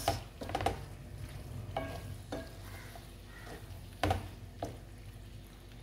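Wooden spoon stirring and scraping bow-tie pasta with eggplant around a frying pan over a low sizzle, with about half a dozen short scrapes and knocks against the pan, the loudest about four seconds in.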